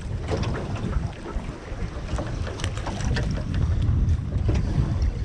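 Wind buffeting the microphone on a small boat on open water, with water slapping against the hull and a few light clicks and knocks.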